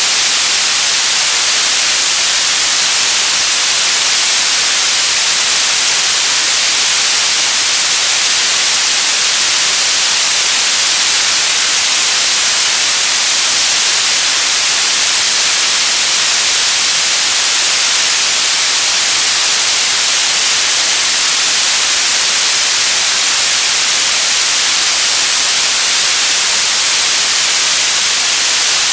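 Radio static: a steady, unbroken hiss, strongest in the high range, with no tones or breaks.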